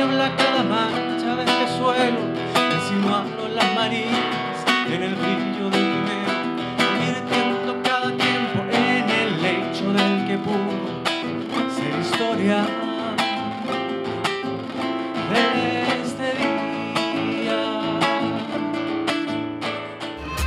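A man singing while strumming an acoustic guitar, a live solo song.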